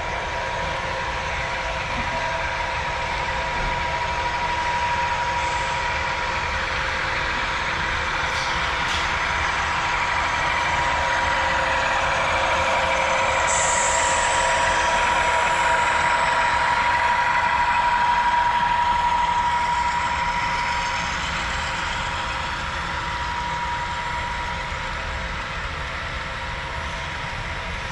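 Diesel locomotive engine sound from the LokSound decoders of an HO scale five-unit BNSF locomotive lashup as the train runs. It is a steady drone with a held hum, and it swells louder about halfway through before easing off again.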